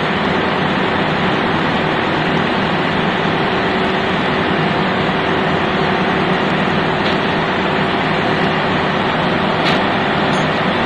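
Steady drone of ship's engine-room machinery running, a constant loud noise with a few even hums in it and a faint click near the end.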